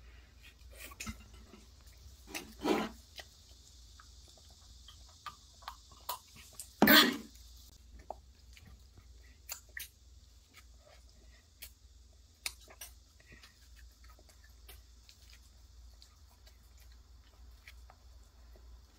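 Close-up chewing and biting of a crispy-crusted waffle topped with whipped cream: soft mouth clicks and smacks throughout, with two louder brief noises about three and seven seconds in, the second the loudest.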